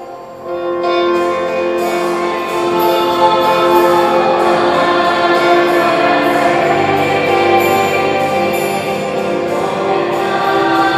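A woman psalmist singing the responsorial psalm of the Mass, in long held notes. There is a brief break right at the start before the next phrase comes in, a little under a second in.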